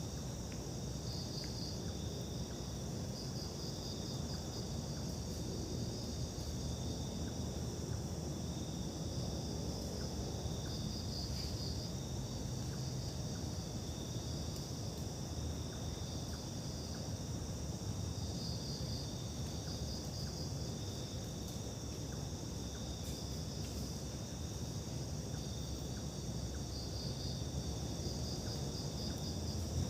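Crickets and other insects chirring steadily, with short trills of rapid chirps breaking in every few seconds, over a low steady rumble.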